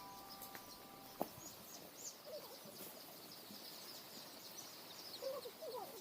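Many young chicks peeping faintly and continuously, with a single sharp click about a second in.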